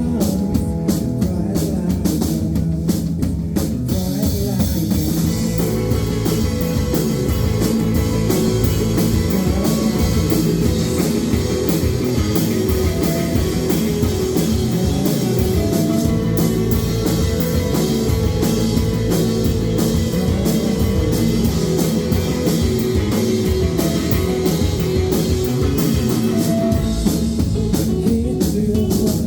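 Rock band playing live: drum kit keeping a steady beat under guitars, full and continuous.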